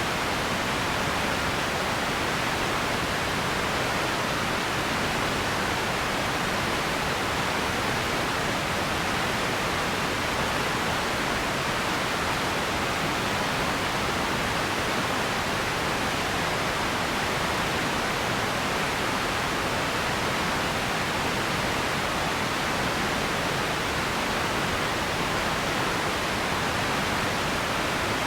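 Radio static: a steady, even hiss with no tones or breaks, strongest in the upper-middle range.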